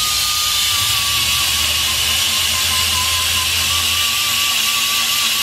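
Pneumatic hand tool running at speed against the front wheel hub: a steady high air-motor whine, wavering slightly in pitch, over a loud rush of exhaust air.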